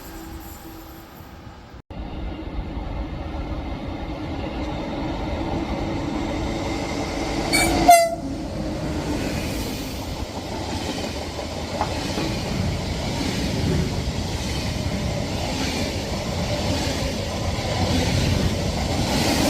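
A train running past on the rails, its rumble and wheel noise building steadily after an abrupt break about two seconds in. About eight seconds in the train gives a single short, loud horn blast that drops in pitch as it ends.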